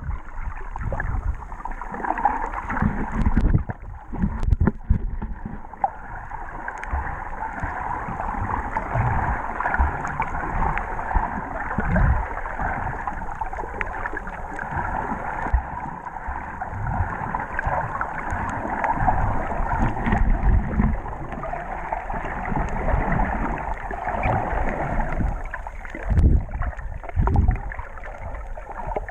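Muffled water noise picked up by a camera held underwater: a steady rushing hiss with irregular low bumps and thumps as the camera moves through the water.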